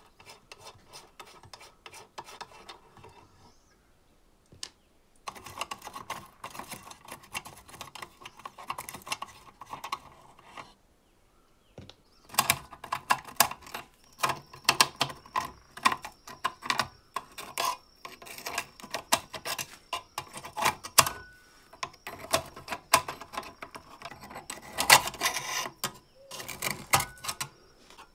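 Old emergency lamp's toggle switches and sheet-metal housing being handled and worked: dense small clicks, taps and metallic rattles in bursts, with two short pauses.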